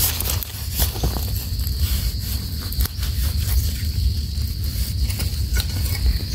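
A knife digging and scraping in damp soil to lift a termite mushroom out of the ground: scattered small scrapes and clicks over a steady low rumble and a steady high hiss.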